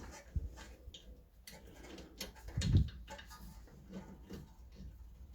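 Scattered light clicks and knocks from hand work on a car's rear brake caliper and its 12mm bolts, with one dull thump a little past the middle.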